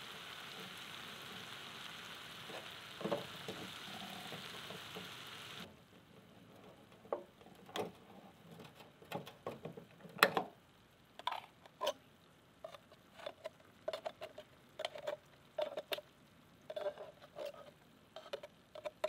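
Ground meat sizzling in a skillet on a butane camp stove, stopping abruptly about six seconds in. Then many irregular sharp metallic clicks and taps, some ringing briefly, as a tin can is stabbed and pried open with a knife for want of a can opener.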